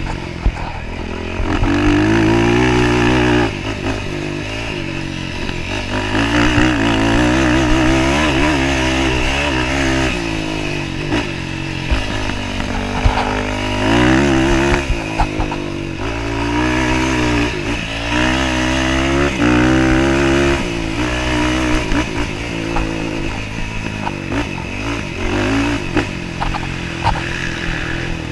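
Off-road dirt bike engine heard close from the rider's helmet, revving up and dropping back over and over as it accelerates, shifts and eases off over rough ground, with scattered knocks from the bike over bumps.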